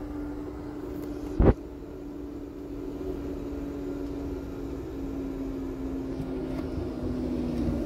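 Semi-truck's diesel engine idling, heard inside the cab as a steady drone that dips slightly in pitch near the end. A single sharp knock comes about a second and a half in.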